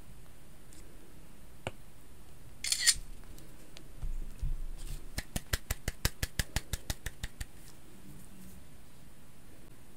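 Light handling and tapping sounds on a tablet and its case: a click, a brief rustle and a soft thump, then a quick, even run of about seventeen light taps, roughly eight a second, for about two seconds.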